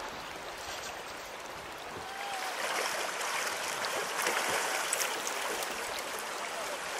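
River water rushing steadily over a shallow riffle. About two seconds in it gets louder and brighter, with a few splashes as a hooked fish thrashes near the landing net.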